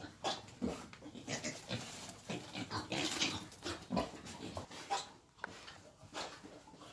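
Wild boars grunting in a series of short, irregular grunts.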